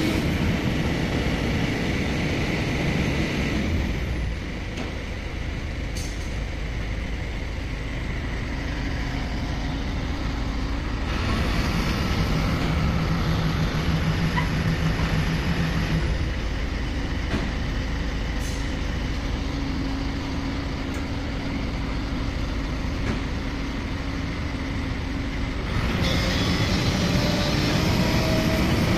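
Kobelco SK210 hydraulic excavators working: diesel engines running under load and hydraulics driving the booms and buckets as they dig wet soil, the engine note swelling and easing as the load changes, with a couple of sharp knocks.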